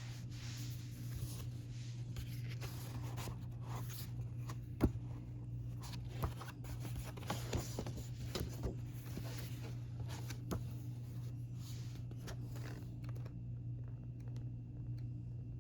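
Paper and plastic album packaging being handled and unwrapped: rustling and scraping with a few sharp clicks, the loudest about five seconds in, over a steady low hum. The handling dies down near the end.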